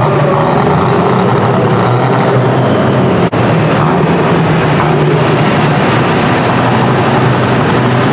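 Light-limited super stock pulling tractor's engine idling loudly and steadily at the end of its pull, with a momentary dropout about three seconds in.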